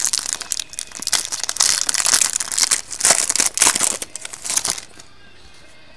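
Trading-card packaging wrappers being torn open and crumpled by hand: a dense run of crinkling and crackling that stops about five seconds in.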